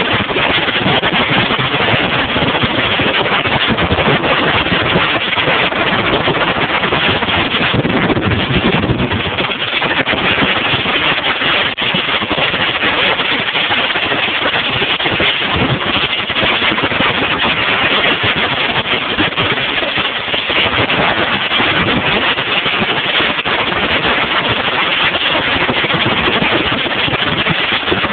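Bass boat underway on choppy water: a steady, loud rush of engine, wind and water noise.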